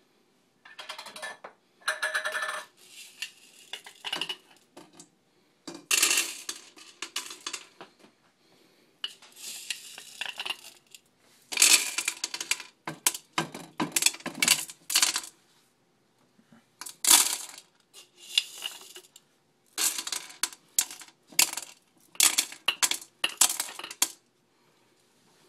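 Dry popcorn kernels spooned into a Whirley Pop stovetop popcorn popper's metal pot, rattling against the metal in repeated short bursts.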